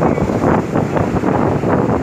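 Wind buffeting the microphone: a loud, uneven rushing rumble that swells and dips several times a second.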